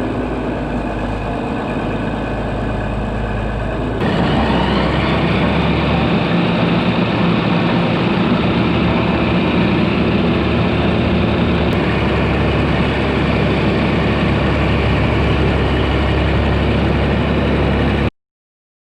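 Farm tractor's diesel engine running steadily, just after a hard start on starting fluid and a battery boost. It gets louder and rougher about four seconds in, then cuts off abruptly near the end.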